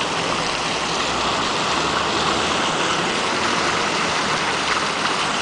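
Water from the Tyler Davidson Fountain's jets and spouts splashing steadily into its stone basin, a constant rush of falling water.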